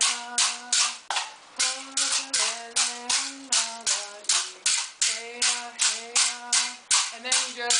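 Puʻili, split-bamboo rattle sticks, being struck in a steady rhythm of about three crisp buzzing clacks a second, with a short break about a second in. A voice hums or sings the beat along with them.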